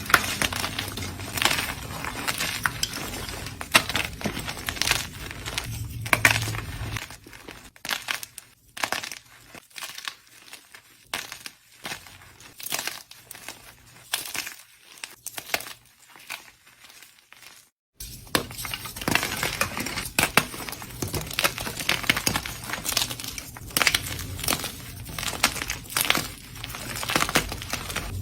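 Blocks of gym chalk being crushed and crumbled, giving a dense run of dry crunching and crackling. It grows quieter and sparser for a stretch in the middle, then picks up again after an abrupt cut.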